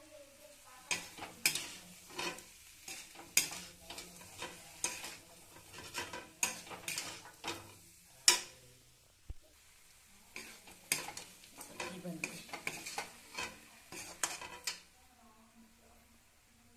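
Metal spoon stirring and scraping in a cooking pan: a string of sharp clicks and scrapes, with a pause of about two seconds midway.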